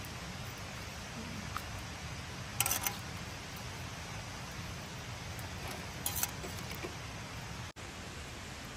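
Whole trout grilling on a wooden skewer over wood embers: two short crackles, about two and a half and six seconds in, over a steady rushing hiss.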